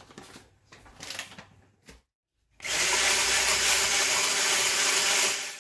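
Hand immersion blender running steadily for about three seconds, blending a thick batter of cottage cheese, yogurt, egg and rolled oats in a plastic beaker; it starts about halfway in and stops shortly before the end. Before it, a few faint rustles.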